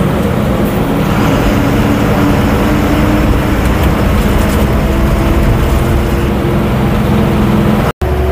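Bus engine droning steadily under road and tyre noise while the bus travels along the highway, heard from inside the passenger cabin. The sound cuts out for an instant near the end.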